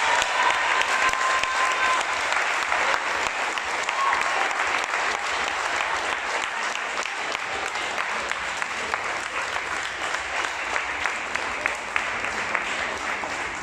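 Audience and wrestlers applauding, a dense run of many hands clapping that slowly grows a little quieter toward the end.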